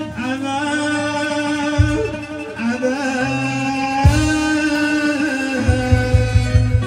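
Moroccan folk song performed live: a man sings long, ornamented held notes through a PA over string accompaniment. Low drum strokes mark the beat, with a quick run of them near the end.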